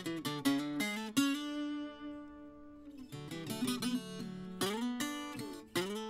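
Solo viola caipira, the Brazilian ten-string guitar, plucked by hand: a run of picked notes, then a chord left ringing and fading for about two seconds before the picking starts again.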